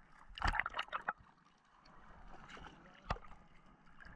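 Sea water splashing and slapping at the surface, with a quick run of sharp splashes about half a second in and a single one about three seconds in.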